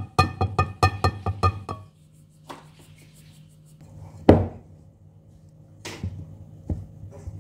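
A stainless steel bowl is tapped against the rim of a mixing bowl as the dry flour mix is shaken out, giving about eight quick ringing taps in the first two seconds. Then a wooden spoon stirs stiff cookie dough, knocking against the bowl, with one loud thunk about four seconds in.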